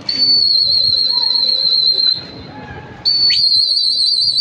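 A pigeon flyer's whistle blown in two long, loud blasts to keep the flock circling. The first is a steady high note lasting about two seconds. The second starts about three seconds in and is a warbling trill.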